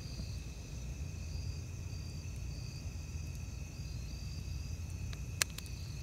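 Night insects, crickets, chirping in short repeated pulses over a steady high-pitched buzz, with a low rumble underneath. One sharp click comes near the end.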